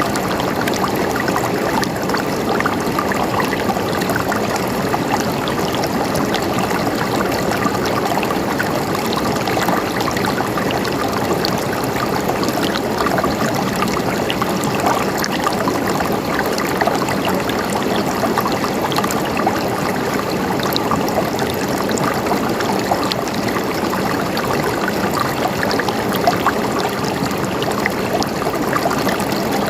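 River water flowing over rocks: a steady rushing and splashing with many small trickles.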